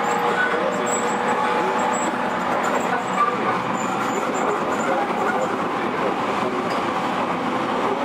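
JR E231 series electric train running along the track, heard from inside a passenger car: a steady running rumble with a faint steady whine.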